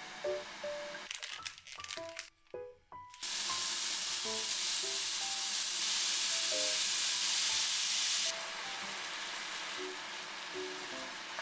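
Food frying in a hot frying pan: a short sizzle of spinach, a few clicks, then minced beef sizzling hard from about three seconds in, easing to a steadier, softer sizzle near eight seconds as it is stirred with a wooden spoon.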